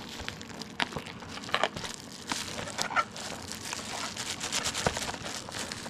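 Plastic-wrapped product packaging being opened by hand: irregular crinkling and crackling, with a few sharper rustles.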